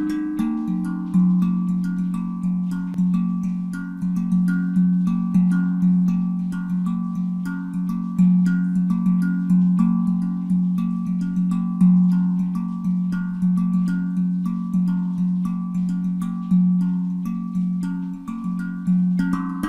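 Handpan, a steel hand drum tuned to F Phrygian at 432 Hz, played by hand in a steady rhythmic pattern: ringing struck notes, several a second, with a deep low note sounding again and again under higher notes.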